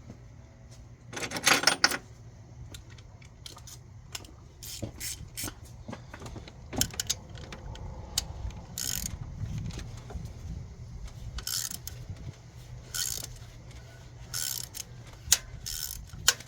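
Metal hand tools and hardware clinking and rattling while a stubborn cylinder head bolt is worked into the engine block, with a loud burst of rattling about a second in and scattered sharp clicks after.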